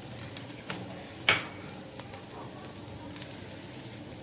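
Chopped vegetables, capsicum and cabbage, sizzling in oil in a frying pan, with a few light clicks and one sharper tap about a second in.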